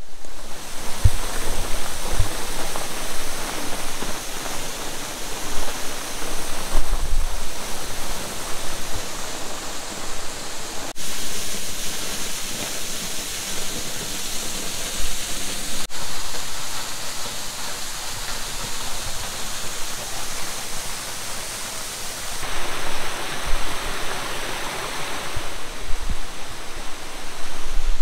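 Waterfall dropping from a rock overhang into a shallow pool: a steady rushing splash of falling water, with a few low bumps.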